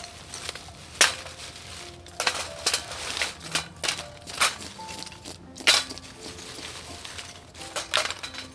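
Fish being scaled and cleaned with a knife: irregular sharp scrapes and knocks, two of them much louder, about a second in and past the middle.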